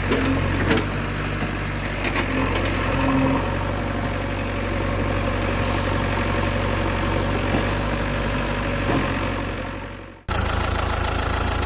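An engine idling steadily, with a few brief knocks over it. It fades away and cuts off sharply about ten seconds in, then a similar steady engine hum starts again.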